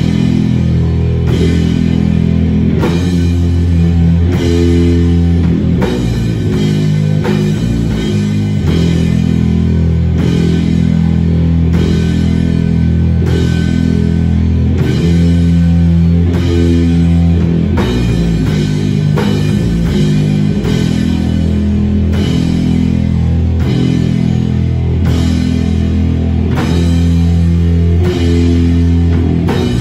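Live rock band: electric guitar and drum kit playing loud, heavy riffs, with low sustained guitar notes changing about every second over a steady drum beat.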